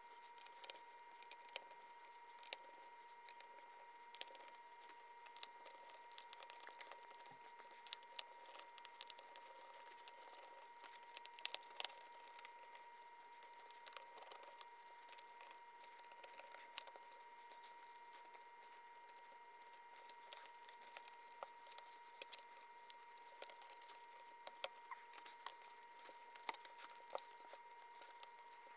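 Faint, scattered light clicks and rattles of the plastic centre dash bezel of a Mazda FD RX-7, its wiring connectors and small screws being handled and unscrewed with a screwdriver, over a faint steady high hum.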